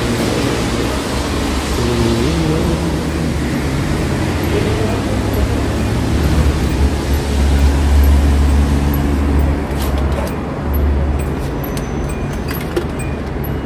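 Car-wash equipment running: a steady rushing noise over a deep low rumble, loudest about six to nine seconds in. About nine or ten seconds in the rushing drops away, leaving the rumble and a few light clicks and taps.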